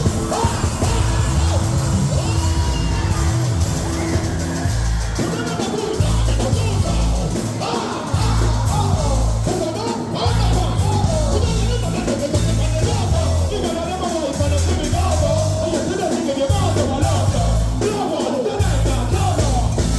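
Dancehall music with a heavy repeating bass beat, with voices singing and shouting over it.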